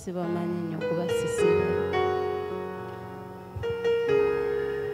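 Electronic keyboard playing slow, held chords as background music, the chord changing every second or so.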